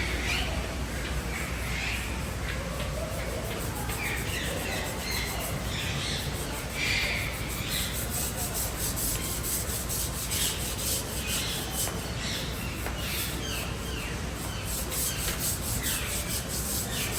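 Birds chirping and calling again and again, short calls overlapping, over a steady scratchy rubbing noise.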